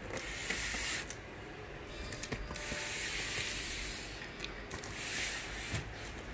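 A hand rubbing and brushing over a corrugated cardboard carton: three stretches of hissy rustling with a few light clicks between them.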